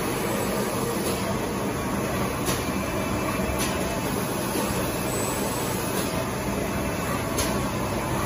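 Roll-to-roll screen printing machine running: a steady mechanical hum with faint clicks every second or so.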